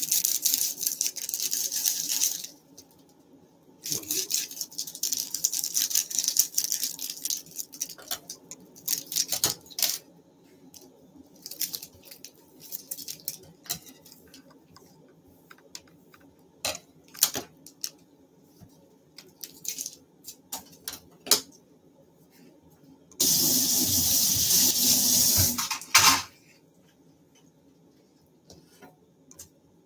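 Plastic instant-ramen seasoning sachets crinkling as they are torn open and squeezed into a ceramic bowl, followed by scattered small clicks and taps. About 23 seconds in, a loud steady rushing noise runs for about three seconds and cuts off suddenly.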